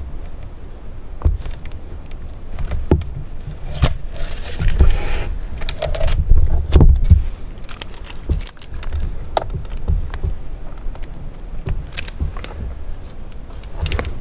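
Handling noise from a Brother sewing machine's plastic parts: scattered clicks and knocks as a part is tugged at to pull it off, with a stretch of rustling about four to six seconds in.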